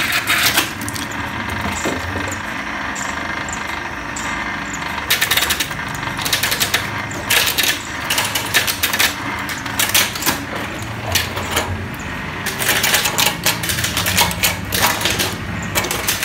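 Coconut shell-removing machine: its 1 hp electric motor and gearbox hum steadily while the studded rotating disc chips away at a mature coconut's hard shell, in repeated bursts of rapid clattering and rattling.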